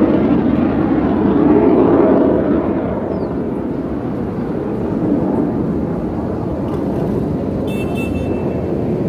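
Aircraft engine noise from a plane flying by overhead, loudest in the first couple of seconds and then dropping to a lower, steady level as it moves away.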